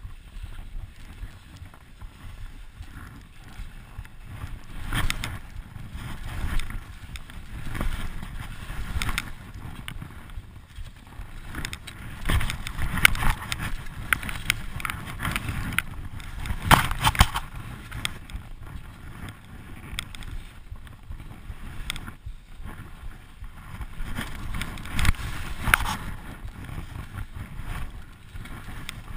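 Skis hissing and scraping over packed snow during a run down a narrow tree track, heard close from a camera worn by the skier, with wind on the microphone. Irregular louder scrapes and knocks come through, the strongest about halfway through.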